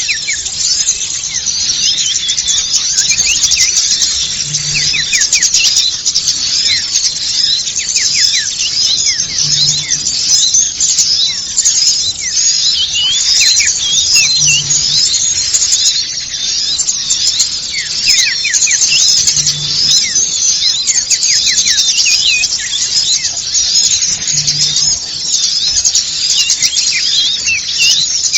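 Bird-lure recording of a dense, noisy chorus of many small birds, all high, thin chirps and quick falling notes without a pause. A faint low blip recurs about every five seconds.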